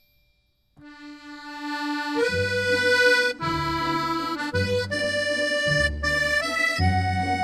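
Background music. After a short silence a new track starts about a second in with a held reedy note, and a bass line and chords join about two seconds in.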